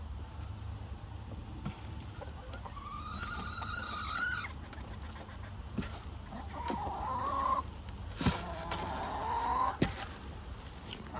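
Backyard hens making three drawn-out, slightly rising calls, with two sharp taps near the end.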